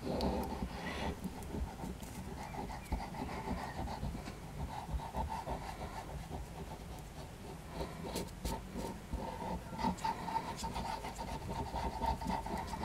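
Soft scratching and rubbing of a glue bottle's nozzle tip dragged across chipboard as a squeezed plastic bottle lays down lines of glue, with many small clicks. A faint steady tone grows stronger in the second half.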